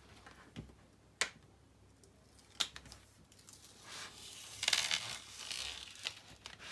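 Paper cover sheet being peeled back off the sticky adhesive of a diamond painting canvas and rustling as it is handled, loudest about two thirds in. Two sharp clicks come in the first few seconds.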